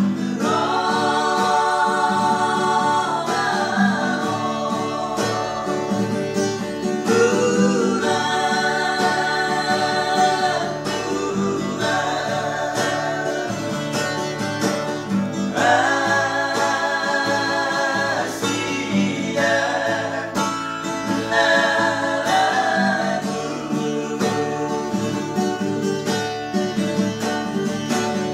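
Acoustic guitar strummed in a steady rhythm while men sing along in long, held phrases.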